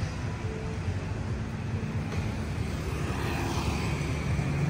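Street traffic: a steady low hum of motorbike and car engines running.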